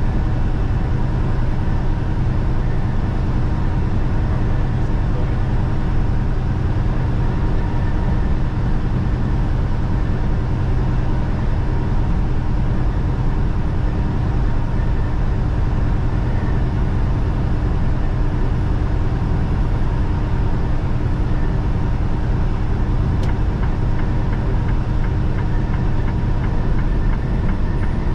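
Steady drone of a semi-truck's diesel engine and road noise, heard from inside the cab while driving at a constant speed.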